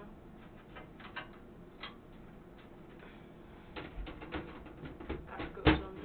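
A computer case's side panel is fitted onto the tower and pushed shut. There are scattered light clicks and knocks of handling, then one loud knock near the end as the panel goes home.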